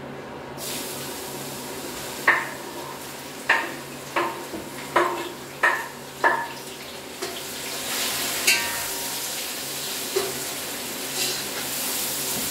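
Tap water running, with six sharp clinks of kitchen dishes in the first half, as meat is rinsed in water.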